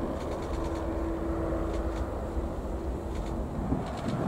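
Engines of a Boeing 737 MAX airliner at takeoff thrust as it climbs away: a steady jet rumble with a held hum running through it. Near the end it changes to a rougher rumble.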